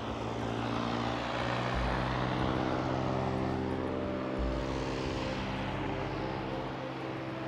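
A propeller aircraft engine running steadily.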